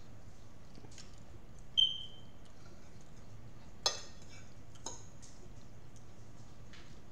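Metal forks clinking against dinner plates while eating: three sharp clinks, the first and loudest about two seconds in with a brief ringing tone, then two more a couple of seconds later.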